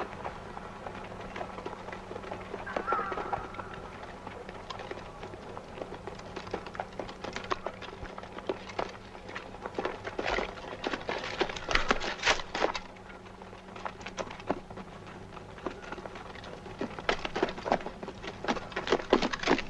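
Irregular footsteps, scuffs and rustling of people moving through dry brush on stony ground, coming thickest around the middle and again near the end, over a steady low hum.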